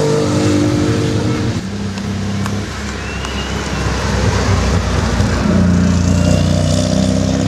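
Classic Mini's four-cylinder engine driving past close by, followed by a red MGB roadster's four-cylinder engine pulling away, louder and rising in pitch from about five seconds in.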